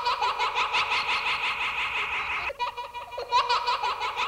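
Baby ghost's scream as a cartoon sound effect: a high held tone that breaks into a rapid, regular warble, heard twice.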